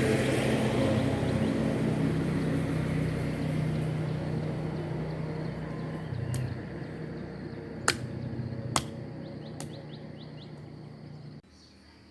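An engine hum, loud at first and fading steadily as it moves away, then cut off abruptly near the end. A few sharp clicks fall in the second half.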